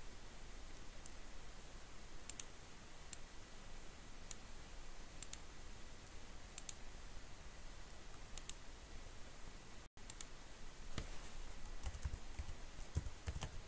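Computer keyboard keys clicking: a few scattered key presses, then a quicker run of typing from about ten seconds in.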